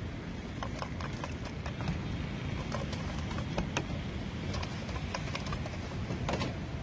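Chicken pieces being tossed in a stainless steel platter covered with an upturned perforated steel bowl: scattered soft clicks and knocks of food against metal at irregular intervals, over a steady low background noise.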